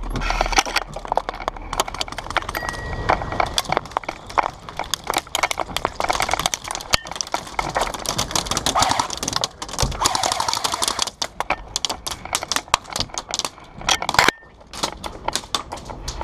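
Airsoft gunfire: dense, irregular sharp clicks and cracks, some coming in quick runs like short bursts.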